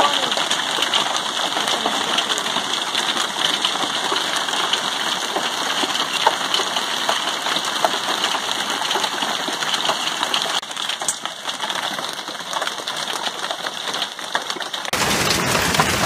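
Hailstones falling thickly and pelting a wooden deck, a glass-topped patio table and the yard, a steady dense patter of small clicks. About a second before the end the sound switches abruptly to a fuller, deeper rushing storm noise.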